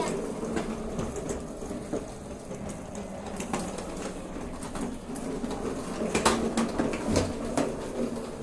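Plastic wheels of a children's ride-on swing car rolling over a terrazzo floor: a steady low hum, with scattered clicks and knocks, the sharpest about six seconds in.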